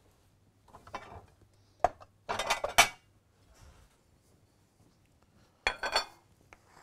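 White ceramic serving plate and other dishes clinking and clattering as the plate is taken up: a few separate clatters, loudest about two and a half seconds in, with another near the end.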